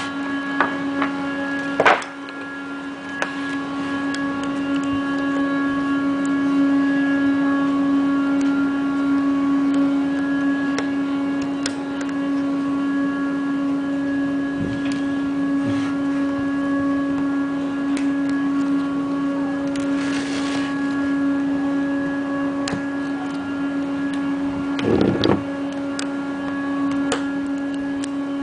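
A steady hum at one constant pitch, with a few clicks and knocks, the loudest about two seconds in and near the end.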